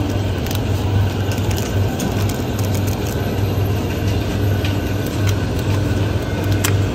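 Steady low machine hum of a convenience store's open refrigerated display case, with a few light clicks as plastic-packed rice balls and a bento box are picked up.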